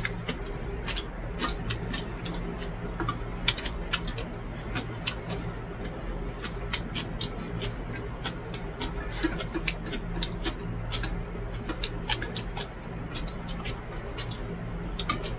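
A person chewing and slurping a mouthful of cold noodles in broth, with many small wet mouth clicks at irregular intervals, over a steady low hum.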